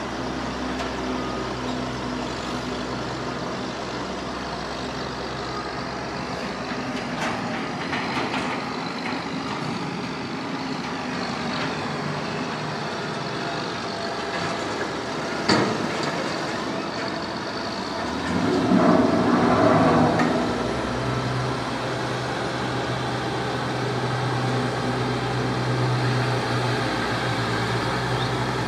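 Heavy trucks and road-construction machinery running: a steady engine drone, a sharp bang about halfway through, and a louder burst of noise a few seconds later, followed by a steadier low engine hum.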